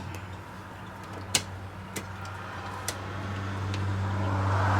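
Steady low hum with a few sharp clicks, and a rushing noise that swells over the last couple of seconds.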